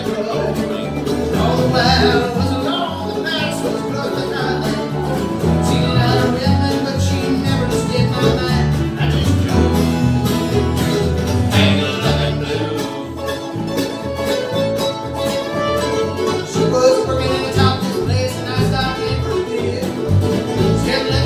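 Live bluegrass band playing an instrumental passage: bowed fiddle, mandolin, strummed acoustic guitar and resonator guitar over an upright bass.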